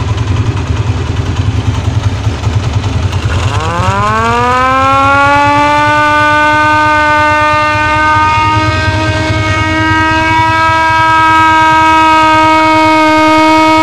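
Motorcycle-mounted electric rotor siren, the large ambulance-type siren horn, spinning up with a rising wail about three and a half seconds in and then holding one steady pitch. Under it the motorcycle engine idles with no throttle. The siren is powered through a 4700 µF 35 V capacitor fitted in place of the battery.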